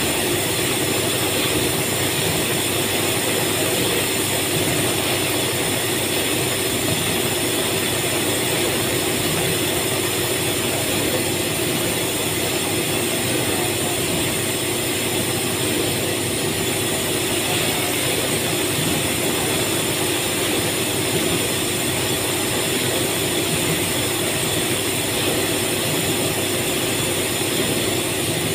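Steady drone of running factory machinery: a constant hum with several held tones and no distinct strokes or impacts.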